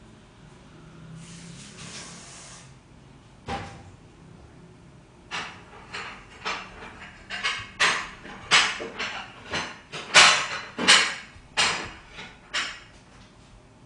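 Off-screen household clatter: a short soft hiss, one sharp knock about three and a half seconds in, then an irregular run of a dozen or so clicks and knocks over the next seven seconds, as of things being handled and a cupboard worked.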